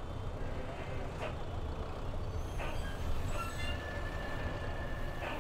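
Bus engine and road rumble heard from inside the passenger cabin: a steady low drone with a few short rattles or knocks, and a thin high whine held for about a second and a half midway.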